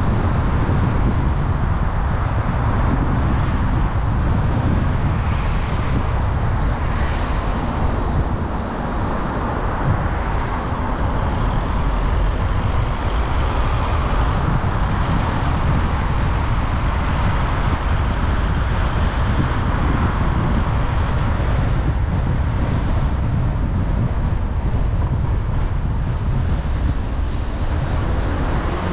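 Steady driving noise of a car on the road: a continuous low rumble with a hiss of tyres over it, dipping slightly about eight seconds in.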